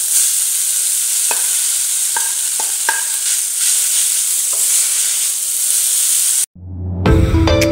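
Vegetables frying in a pan with a steady sizzle as dry instant noodles are dropped in and stirred with a wooden spatula, with a few light knocks of the spatula against the pan. The sizzle cuts off suddenly near the end, and music starts.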